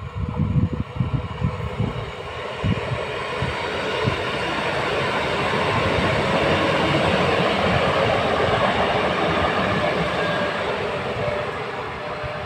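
Two coupled EN63A electric multiple units pulling away from a station and passing close by. Their running noise and wheels on rail grow to a peak about halfway through, then ease off as the train recedes. A few low bumps in the first two seconds.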